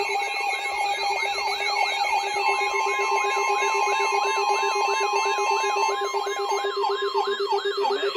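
Several emergency alert alarms sounding at once. Siren-like sweeps repeat about three times a second over a steady pulsing tone and a high warble. An extra steady tone joins about two and a half seconds in and stops about a second before the end.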